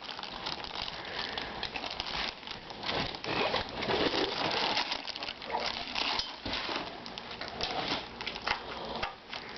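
Plastic baby-wipes package crinkling irregularly as a baby grabs and squeezes it.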